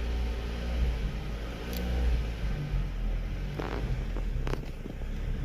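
Mazda 3 engine idling with a low rumble, its idle speed rising and falling, with two light clicks past the middle. The surging idle is the sign of a failing coolant temperature sensor that makes the engine computer think the engine is cold.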